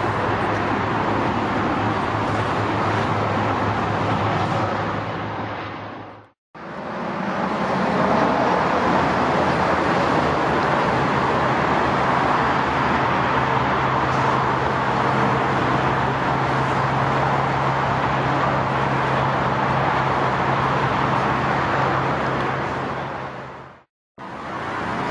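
Jet airliner engines running: a steady, loud rumble with a low hum underneath. It cuts to silence briefly about six seconds in and again near the end.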